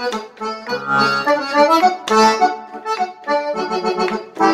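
Reedless digital Universal concertina playing a Dutchman-style polka tune through a loudspeaker: a reedy melody over short, evenly repeated bass-and-chord pulses.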